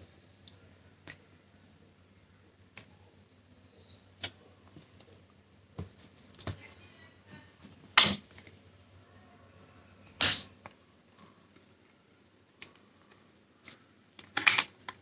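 Scattered clicks and taps of a Sony TV remote's plastic casing and button pad being handled and pressed together, with two louder knocks about eight and ten seconds in.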